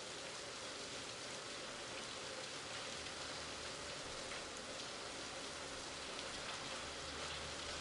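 Steady heavy rain falling, an even hiss of drops on surfaces.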